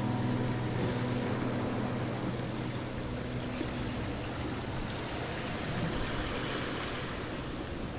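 Steady road and tyre noise inside a moving car's cabin, driving slowly on a paved lane, recorded by a dash cam. Background music fades out over the first few seconds.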